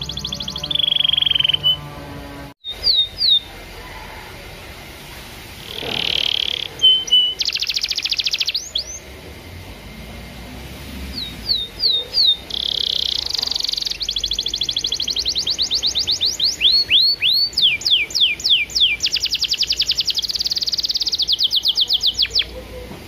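Domestic canary singing a long, varied song: fast rolling trills, short whistled notes and a run of steep downward-sweeping notes near the middle, with a few brief pauses between phrases.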